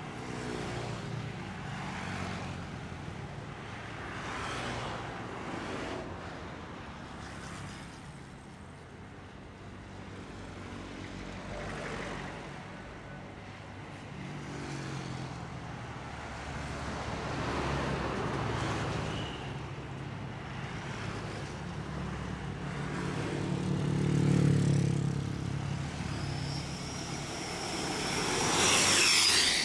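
Roadside traffic: diesel trucks, cars and motorcycles passing one after another, their engines and tyres swelling and fading with each pass. The loudest passes come near the end, the last with a high whine.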